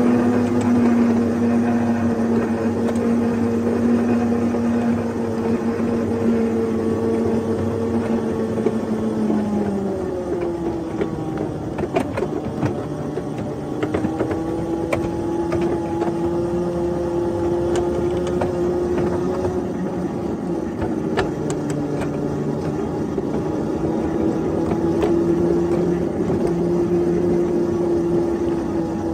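7½-inch gauge ride-on locomotive running along the track with a steady drone whose pitch drops about ten seconds in and then holds lower, with a few sharp clicks.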